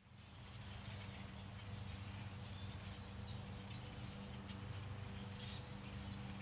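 Faint outdoor ambience: a steady low hum with scattered bird chirps.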